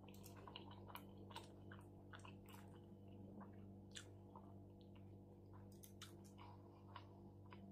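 Faint close-up chewing of a juicy shawarma, with many small wet mouth clicks and smacks scattered through it, over a low steady hum.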